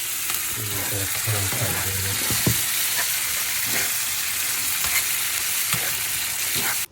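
Chicken sizzling and frying in a hot pan just after sauce has gone in, a steady loud hiss with a few light clicks from stirring.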